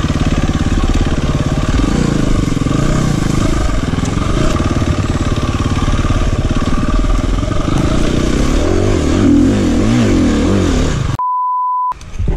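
KTM EXC-F 350 single-cylinder four-stroke enduro engine revving up and down as the bike rides a dirt trail, its pitch rising and falling with the throttle. About eleven seconds in, the sound cuts out and a steady bleep tone takes its place.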